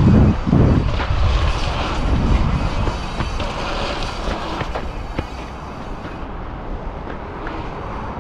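Wind buffeting an action camera's microphone: a loud low rumble strongest in the first second, easing into steady rushing noise with a few faint knocks.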